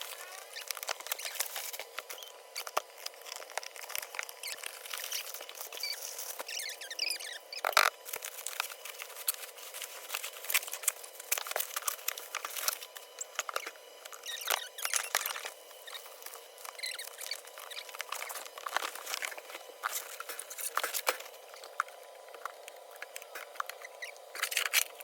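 Packaging being handled during the unboxing of an air fryer: irregular rustling, crinkling and clicks, with a few short squeaks.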